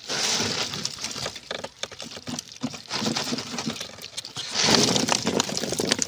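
Live small fish flapping and slapping wetly against each other and against a nylon mesh net on concrete, a dense patter of small clicks and slaps. About five seconds in comes a louder rush as the fish spill out of the net onto the concrete.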